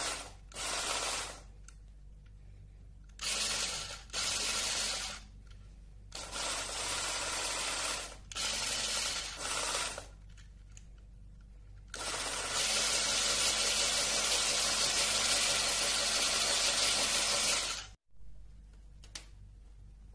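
Small electric motor in a LEGO Technic gear rig, switched on and off by remote: several short runs of a second or so, then one steady run of about six seconds that cuts off suddenly.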